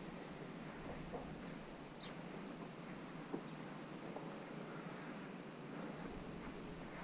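Quiet outdoor ambience: a steady low hiss with faint, scattered high bird chirps and a couple of soft knocks.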